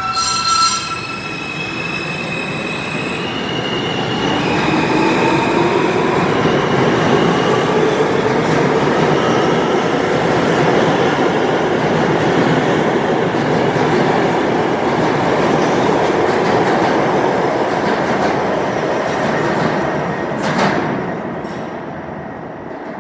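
R160A/R160B New York subway train pulling out of a station. Its AC traction motors give a whine that rises in pitch as it speeds up, over wheel and rail clatter that swells and then fades as the cars pass. There is one sharp knock about 20 seconds in.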